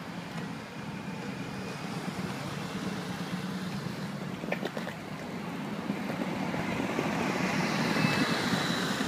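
Diesel engine of an articulated city bus running as the bus drives slowly past at close range. It is a steady low engine note that grows louder near the end as the rear of the bus goes by, with street traffic behind it.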